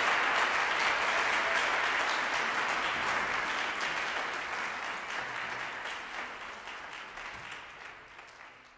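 Audience applauding, the clapping steadily fading away over the last few seconds.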